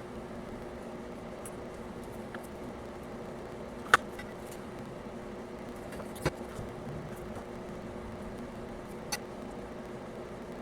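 Small sharp clicks of tools and parts being handled on a workbench during soldering, three of them, the loudest about four seconds in, over a steady low hum.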